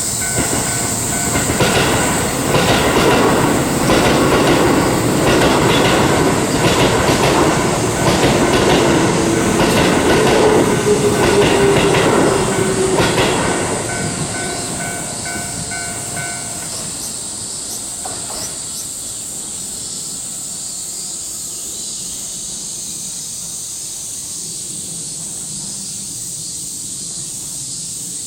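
A Keio Racecourse Line electric train passing over a level crossing, its wheels clacking over the rail joints, while the crossing's warning bell rings. The train noise fades about halfway through and the bell stops a few seconds later, leaving a steady high-pitched insect drone.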